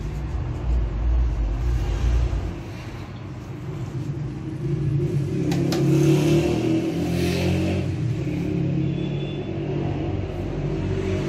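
Electric dough mixer running with a steady low hum as its bowl turns. About six seconds in, flour tipped from a scoop into the bowl adds a brief soft hiss.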